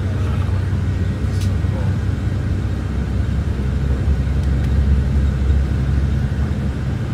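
Steady low rumble of a car driving, heard from inside the cabin, with one short click about a second and a half in.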